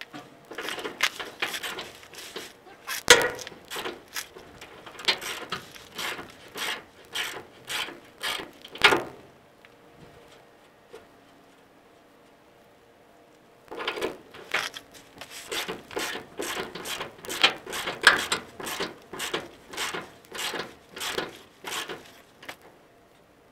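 Hand-tool work on the truck's leaf spring hardware: a quick run of clicks and knocks, a few seconds' pause about ten seconds in, then another run.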